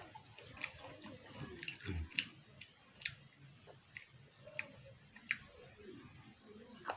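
Close-up chewing of raw kapokan fruit rujak: wet mouth sounds with sharp, irregular clicks, a few each second.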